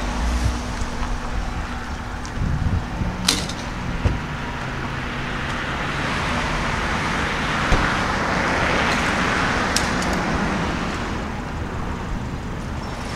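Road traffic noise: a steady low rumble of vehicles, with one passing louder and swelling then fading in the middle, and a couple of short sharp clicks.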